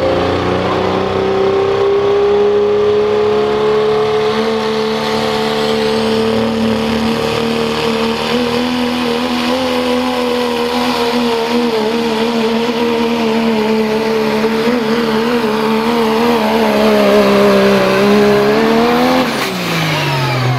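Second-generation Dodge Ram pro stock diesel pulling truck, its Cummins turbo-diesel held at full throttle while dragging a weight-transfer sled: a loud, steady engine drone whose pitch climbs slightly at first, then wavers under load. Near the end the note sags, flicks up once as the driver lifts off, and falls away as the pull ends.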